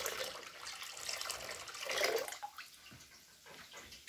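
Water pouring and splashing into a plastic bucket: soak water being drained out of a new oak barrel after soaking. The splashing is strongest for the first two seconds, then dies down.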